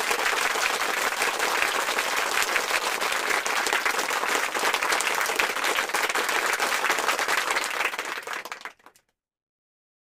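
Crowd applause, dense clapping at a steady level, dying away and cutting to silence about nine seconds in.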